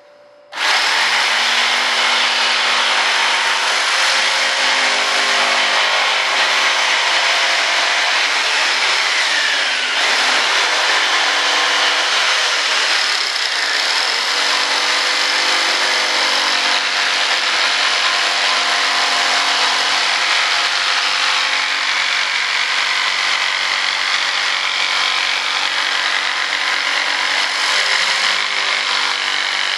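Corded jigsaw cutting through a wooden board, starting about half a second in and running steadily.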